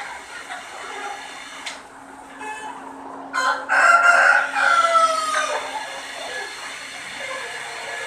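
A flock of chickens clucking, with one bird crowing loudly about three seconds in, a long call that falls in pitch; a steady low hum runs underneath.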